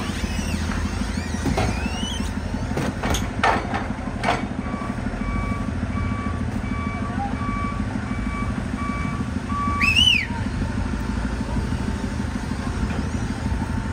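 Forklift engine running, with its reversing alarm beeping steadily for several seconds. A few sharp clanks come a few seconds in, and a short rising squeal near the end of the beeping.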